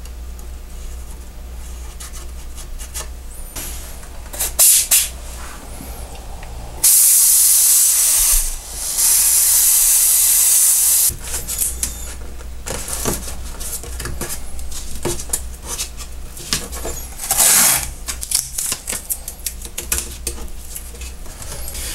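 A handheld steam cleaner hissing in two long blasts, the first about a second and a half, the second about two and a half seconds, a short gap apart. Shorter rasping bursts of masking tape being pulled off a roll come before and after.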